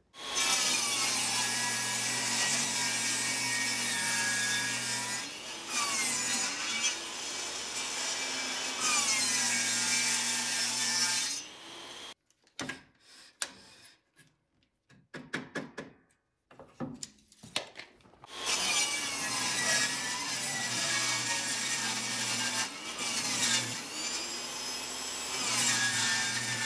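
Craftsman portable table saw ripping a weathered reclaimed board lengthwise into baseboard stock. There are two spells of sawing, each about ten seconds. Between them is a quiet stretch of a few small clicks while the blade is stopped.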